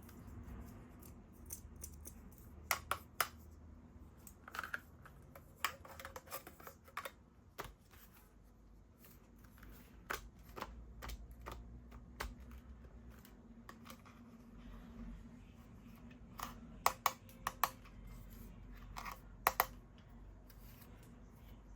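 Irregular clicks and taps of small plastic parts being handled at close range, some in quick pairs or clusters of three, with a short scrape or rustle here and there.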